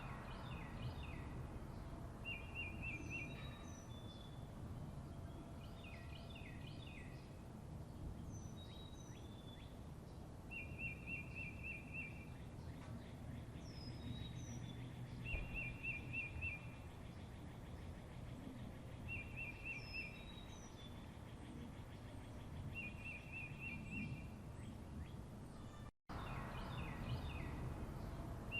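Songbirds singing over a steady low background rumble. One bird repeats a short, rapid trill about every four seconds, with other chirps and short high falling whistles in between. Near the end the sound cuts out for an instant and resumes.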